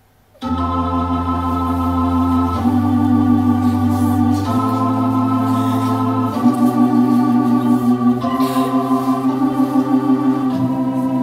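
Music starts suddenly about half a second in: sustained, organ-like chords, changing to a new chord about every two seconds, with a slight pulsing in level.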